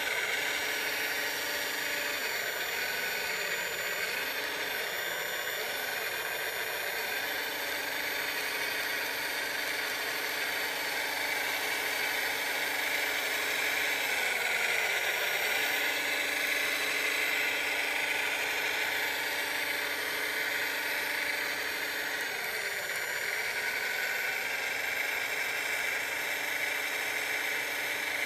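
Radio-controlled scale model wheel loader driving over dirt: a steady machine whine from its motors and drive, with a lower hum that drops out briefly three times.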